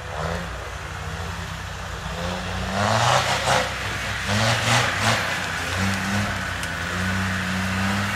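Land Rover Discovery TD5's five-cylinder turbodiesel engine revving up and easing off repeatedly under off-road load, with loud rushes of noise from the tyres and ground about three to five seconds in.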